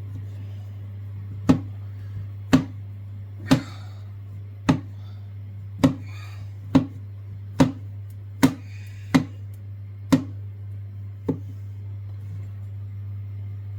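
A kitchen knife chopping on a chopping board, eleven unhurried chops about a second apart, over a steady low hum.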